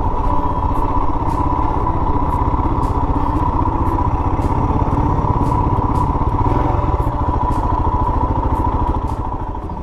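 Royal Enfield Himalayan's single-cylinder engine running steadily while the motorcycle is ridden along the road. The sound eases off near the end.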